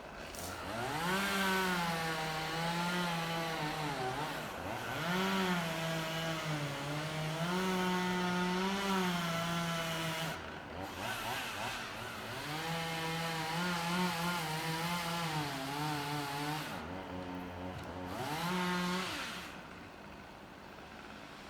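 Gas chainsaw revving up and running at high speed, its pitch wavering and sagging as it cuts through branches. It drops back to idle about halfway through, revs up and cuts again, and falls back to idle near the end.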